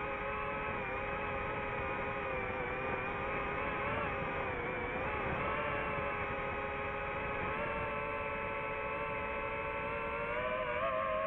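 Multirotor drone's motors and propellers whirring with a steady whine of several pitches at once. The pitches waver about halfway through and step up slightly about eight seconds in and again near the end, as the motor speeds change.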